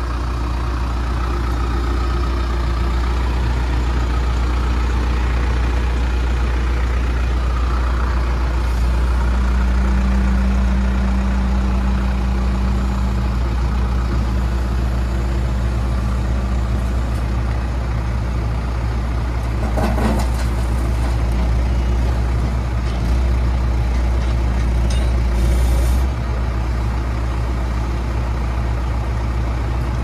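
John Deere 310SJ backhoe's four-cylinder diesel engine running steadily as the machine is driven over gravel. A higher hum joins for several seconds in the middle, and there is a brief knock about twenty seconds in.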